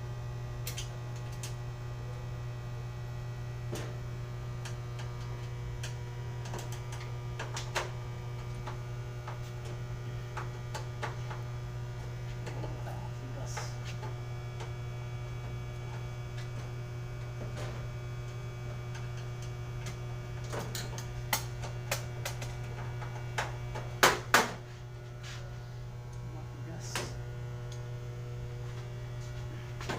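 Steady low electrical hum, with scattered light clicks and knocks of work over it. Two sharp knocks come in quick succession past the three-quarter mark.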